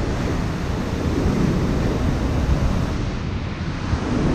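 Rough ocean surf breaking and washing around the wader-clad legs, with wind buffeting the microphone as a low, uneven rumble.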